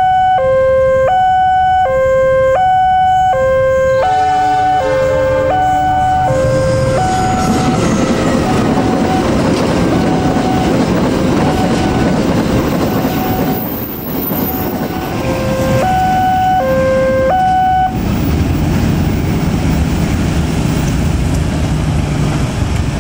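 Railway level-crossing warning alarm sounding a loud two-tone alternating ding-dong, about a note every half second. From about seven seconds in it is largely drowned by the rumble and clatter of a freight train's covered wagons rolling past. The alarm comes through clearly again briefly, then cuts off suddenly about three-quarters of the way through, leaving steady vehicle rumble.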